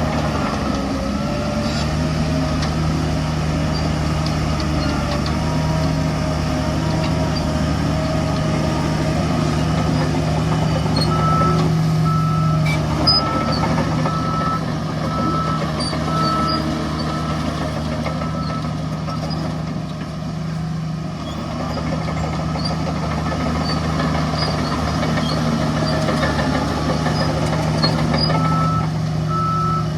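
Heavy construction vehicle's engine running steadily, with a reversing alarm beeping at an even pace, about two beeps a second, for several seconds about a third of the way in and again near the end.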